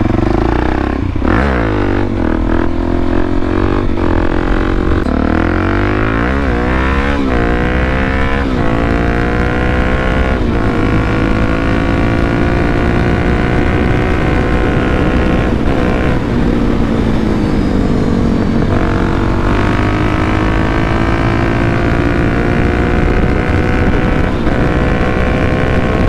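Suzuki DR-Z400SM single-cylinder four-stroke through an FMF PowerCore 4 exhaust, ridden on the road and accelerating hard. The note climbs and drops through four or five gear changes in the first ten seconds, then holds steady, eases off briefly a little past halfway and picks up again.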